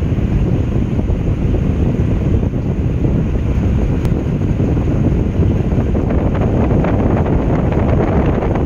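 Blue Star air cooler's fan running, its airflow blowing straight onto the microphone: a steady, loud rush of wind noise.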